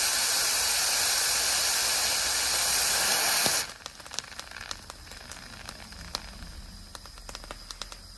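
Blowdown valve of a Mamod Brunel live-steam locomotive's overfilled boiler, venting steam and water in a loud, steady hiss. The hiss cuts off suddenly about three and a half seconds in, leaving faint scattered clicks and crackles.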